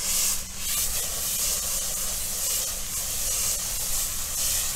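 Hose-end foam gun spraying car shampoo onto the car's paint: a steady hissing spray.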